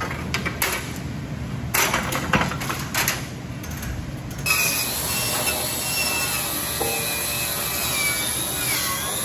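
A string of metal knocks and clanks, then, about four and a half seconds in, a cordless angle grinder running against the steel frame: a steady hiss with a whine that wavers and dips as it bites.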